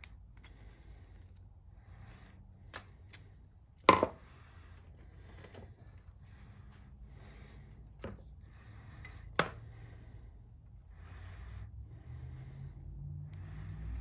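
Hands handling a small plastic circuit breaker and its wires: soft rustling of fingers and wire, with a few sharp plastic clicks, the loudest about four seconds in.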